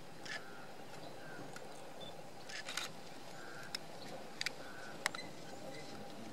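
DSLR camera shutters firing: scattered sharp clicks, some in quick bursts of several frames, over a faint steady outdoor background.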